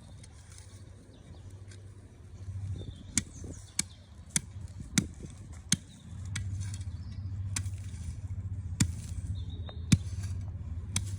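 A series of about nine sharp knocks, irregularly spaced half a second to a second apart, over a low steady rumble that swells twice.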